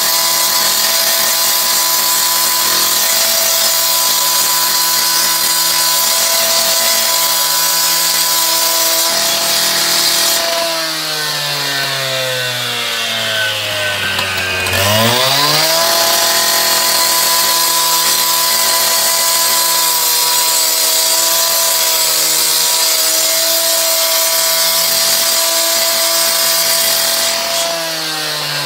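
Two-stroke gas cut-off saw running at high revs, its blade cutting concrete pavers. About eleven seconds in, the engine winds down nearly to idle, revs sharply back up at about fifteen seconds, and begins winding down again near the end.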